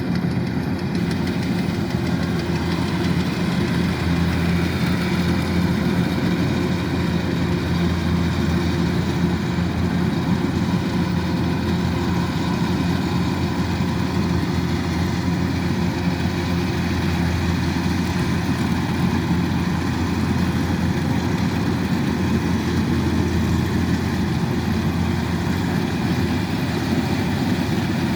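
Kubota DC-105X combine harvester's diesel engine running steadily, a continuous low drone with no change in speed.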